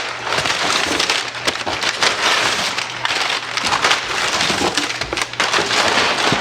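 Paper packing material crumpling and rustling as it is pulled out of a shipping box of books, with many sharp crackles.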